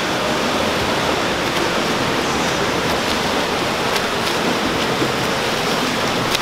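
Several swimmers swimming hard, their strokes and kicks splashing together into a steady wash of water noise, with small splashes ticking through it.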